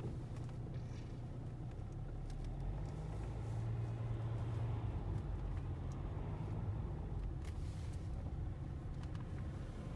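Steady low rumble of a car's engine and tyres heard from inside the cabin while driving slowly; it grows a little louder around the middle.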